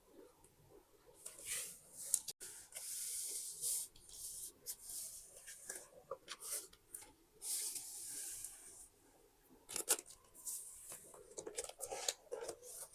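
Paper being handled close to the microphone: two stretches of paper tearing or rustling, each about a second long, between short taps and crinkles.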